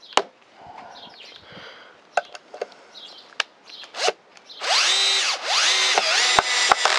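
Bosch PSB 1800 LI-2 18 V cordless drill/driver driving a large No. 5 wood screw into pine, after a few faint clicks. About four and a half seconds in, the motor whines in two runs with a brief pause between them, its pitch rising and then sagging as the screw bites: the driver is struggling with a screw this size.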